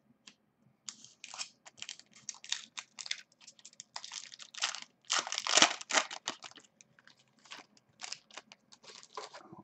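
Foil trading-card pack wrapper crinkling and tearing as it is opened and pulled off the cards: a run of short crackles, loudest about five to six seconds in.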